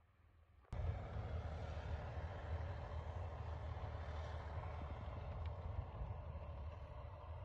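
Wheel loader's diesel engine running steadily as the machine drives with a full bucket of snow, a deep hum that cuts in suddenly under a second in.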